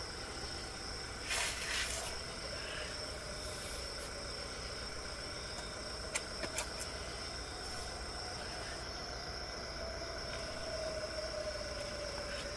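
Night-time crickets giving a steady, unbroken high-pitched chirring drone, under a faint low sustained tone, with a brief rustle about a second and a half in and a few soft clicks around the middle.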